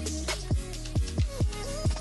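Electronic background music with a steady beat of deep kick-drum hits that drop in pitch.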